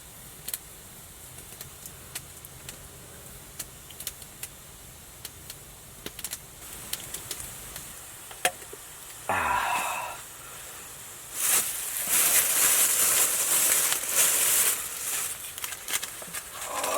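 Campfire crackling, with sharp pops scattered through. About halfway through there is a few seconds of loud hissing, and a short pitched sound just before it.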